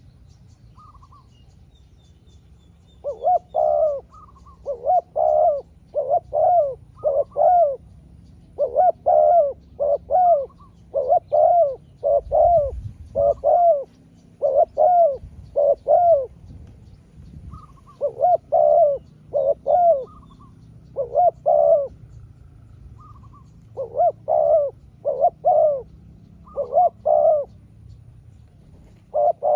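Spotted dove cooing: repeated short, deep coos run in phrases of several notes, with pauses of a second or two between the phrases.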